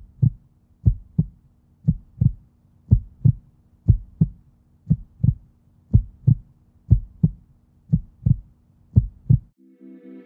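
A slow heartbeat, a double beat about once a second over a faint steady hum, ten beats in all. It stops about nine and a half seconds in, and soft ambient music begins near the end.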